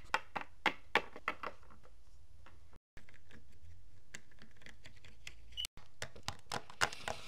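Light clicks and taps of small plastic toy figurines being handled and set down on a hard tabletop, clustered at the start and again near the end, with two brief cuts to silence.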